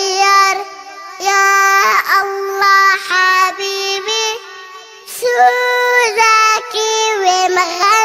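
A young girl singing an Arabic children's song in short phrases, with brief breaks about a second in and just before the middle.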